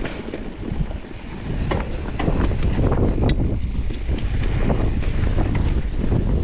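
Wind buffeting the microphone on a mountain bike descent, with short knocks and rattles from the bike and tyres over rough, rocky trail.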